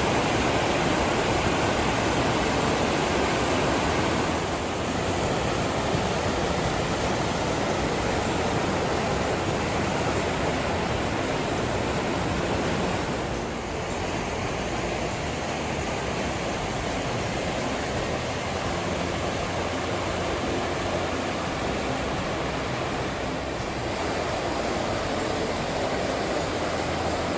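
Waterfall rushing, a loud, steady, dense roar of falling water that eases slightly about four seconds in and again about thirteen seconds in.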